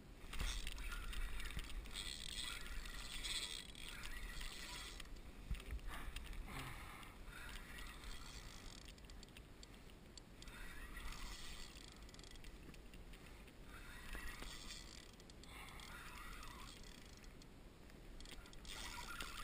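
Water swishing and splashing against a kayak hull in uneven spells of a second or a few seconds, over a low steady rumble.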